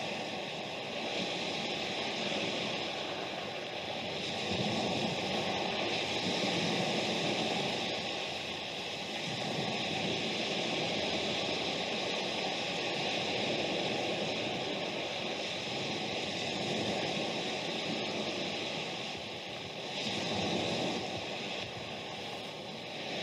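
Sea-wash sound effect: a steady rushing noise of waves that swells and eases every few seconds.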